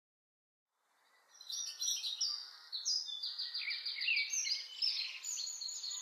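A chorus of songbirds chirping and trilling over one another, with a faint steady hiss beneath, starting after about a second of silence.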